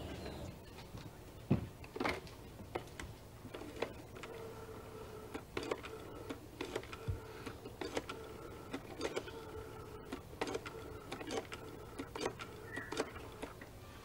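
Telephone being dialled: a series of sharp, irregular clicks, with a faint steady tone underneath from about four seconds in.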